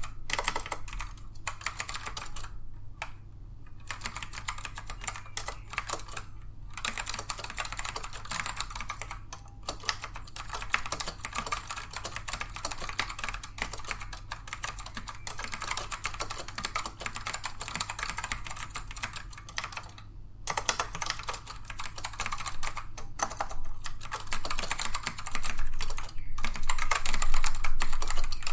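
Fast continuous typing on a Dell AT102W keyboard with black Alps switches, which are tactile rather than clicky. It comes as a dense run of key clacks with a few brief pauses, getting louder near the end.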